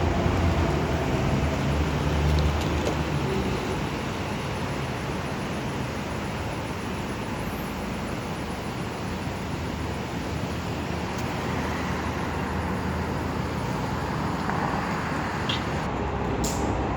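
Steady low rumble of city road traffic, a little louder in the first few seconds and then easing.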